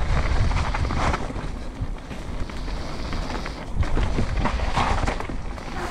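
Wind buffeting a helmet-mounted GoPro microphone as an enduro mountain bike rolls fast down a wet dirt forest trail, with tyre noise on the dirt and scattered knocks and rattles from the bike.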